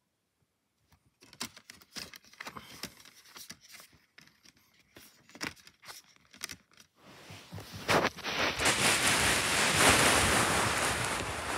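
Sharp plastic clicks and knocks of DVD discs being handled in a multi-disc plastic case, a disc lifted off the hub and slid over another. About eight seconds in, a louder continuous rustling and rubbing takes over, with a few knocks.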